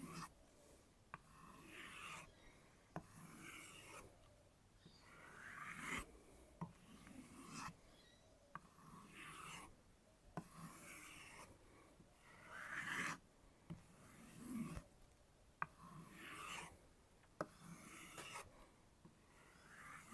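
A steel knife blade being stropped on a kangaroo-leather strop: faint, even swishes about once a second, with a few small clicks between strokes.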